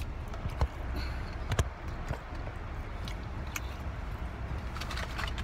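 Steady low hum inside a car cabin, with a few short sharp clicks and soft crackles from a man eating a fish sandwich close by.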